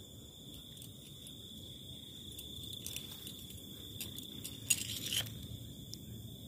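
Insects chirring steadily and high-pitched, with scattered light clicks and a short burst of rustling noise a little under five seconds in.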